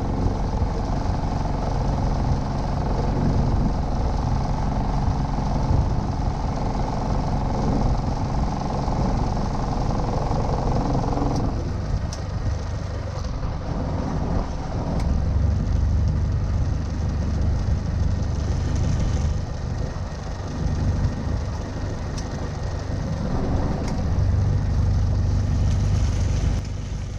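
Motorboat engine running under way with a steady low rumble. About eleven seconds in, its higher note drops away and the engine runs on lower.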